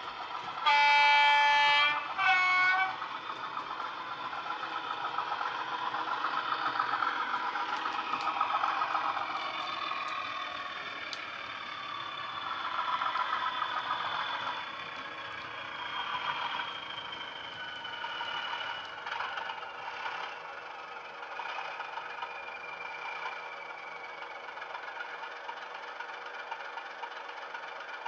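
Soundtraxx Econami DCC sound decoder playing its Class 37 diesel sound through the speaker of a Bachmann model Class 37: a horn blast of about a second near the start, then a shorter one. After that comes the engine sound, its pitch rising and then falling away as the model runs.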